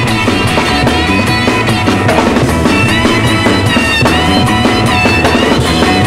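1960s garage rock (freakbeat) band recording playing loudly, with drum kit keeping a steady beat under guitar and bass.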